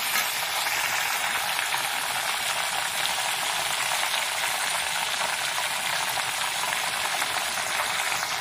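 Paneer cubes and capsicum frying in butter and oil in a kadai, a steady sizzle as a steel spoon stirs them.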